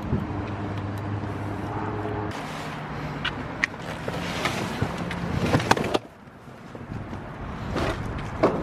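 Vehicle engine running with a steady hum and scattered knocks and clicks. The hum shifts in pitch about two seconds in and drops away about six seconds in.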